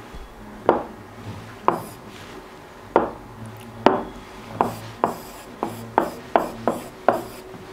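Plastic stylus tapping on an interactive whiteboard screen: four separate taps about a second apart, then a quicker run of taps and short strokes as letters are written.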